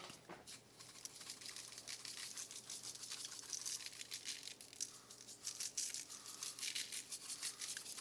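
Hand-held pepper grinder being twisted over the food, a quiet fast grinding rattle of peppercorns being cracked, getting busier after the first second or so.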